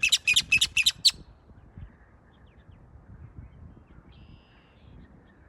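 Great-tailed grackle calling: a quick run of about seven sharp, rattling notes over the first second, then it falls quiet.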